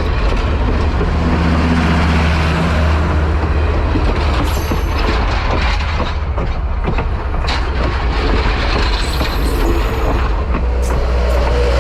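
Train running on the rails: a steady loud rumble with scattered sharp clicks and knocks from the wheels.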